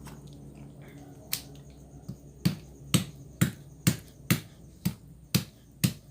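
Fresh ginger rhizomes being smashed flat with a series of sharp knocking blows, about two a second, starting about two seconds in after a single earlier knock.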